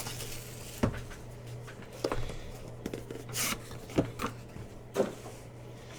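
Trading-card packs and cards handled on a table: a few light taps and knocks, and a brief swish of cards sliding about halfway through, over a low steady hum.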